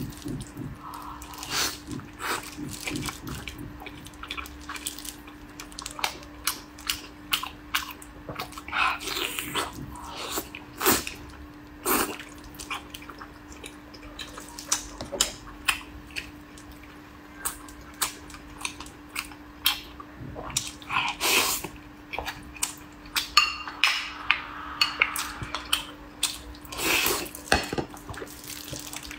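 Close-miked eating of sticky, sauce-glazed braised pork belly: wet chewing and lip-smacking in many short clicks and smacks, over a steady low hum. Near the end a spoon clinks against a glass bowl.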